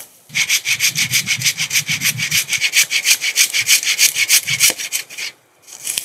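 Hand saw cutting through a fallen pine trunk: quick, even back-and-forth strokes, each a sharp rasp. It starts about a third of a second in and stops about five seconds in.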